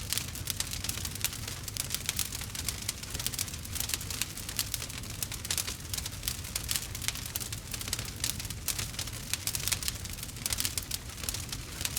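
Wood fire crackling: a dense run of small irregular pops and snaps over a low steady rumble of the burning.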